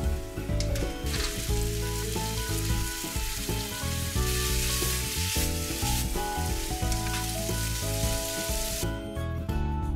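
Burdock, maitake, ground pork and green pepper sizzling in a frying pan as they are stir-fried with a spatula, the seasoning liquid cooking off. Background music plays throughout, and the sizzling stops near the end.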